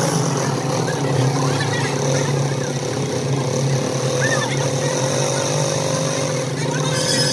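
A vehicle engine running steadily with an even hum throughout.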